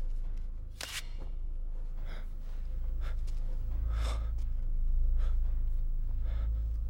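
Heavy gasping breaths, roughly one a second, over a steady low rumble.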